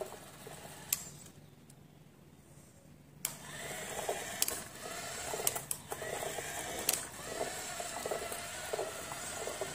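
Small geared electric motor of a homemade wired RC tractor whirring as it runs under the load of a brick-laden trolley. The whir starts about three seconds in and wavers, with a few sharp clicks.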